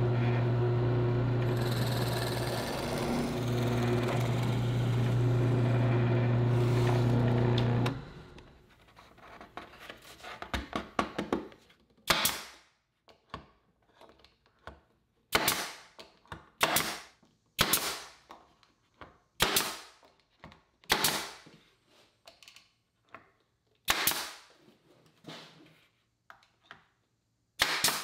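A drill runs steadily for about eight seconds, boring 3/16-inch holes in plywood. A few seconds of light clicks follow, and then a pneumatic nail gun fires about eight times, a sharp crack every second or two, driving nails into the plywood.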